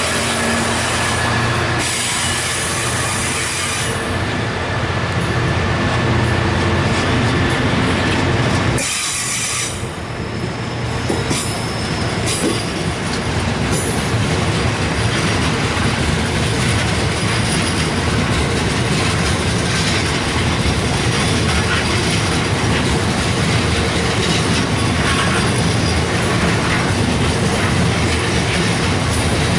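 GB Railfreight freight train of limestone box wagons rolling steadily past at close range behind its Class 66 diesel locomotive. The noise is continuous, with a brief drop in level about ten seconds in.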